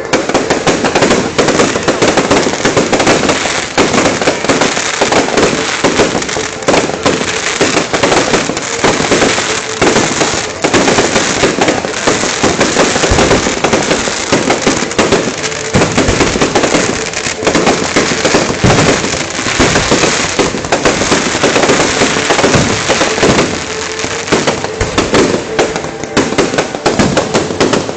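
Fireworks barrage: a dense, unbroken run of crackling bangs, with a few heavier booms mixed in.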